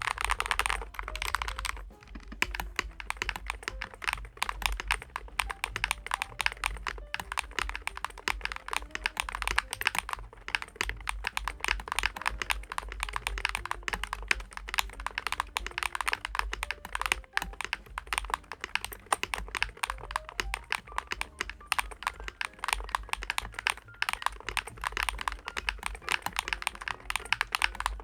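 Continuous fast typing on the DAREU COOL60 keyboard, its magnetic switches and keycaps giving a quick, dense run of clicks.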